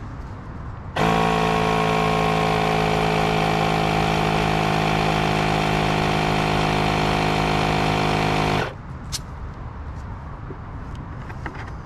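Small electric inflator compressor running steadily for about eight seconds, inflating a rubber sewer test ball in a bucket of water to check its connections for leaks; it starts and stops abruptly. A single brief click follows about half a second after it stops.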